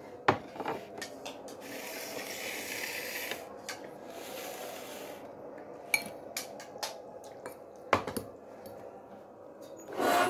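Dishes and cutlery clinking during a meal: scattered sharp clinks, a few seconds of hissing near the start, and a brief louder clatter at the end.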